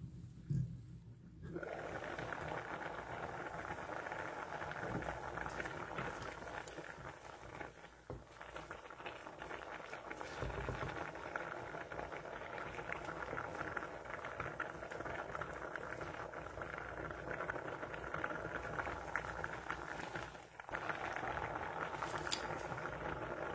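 A pot of lentils boiling hard: steady, crackly bubbling that drops away briefly twice. A short thump about half a second in.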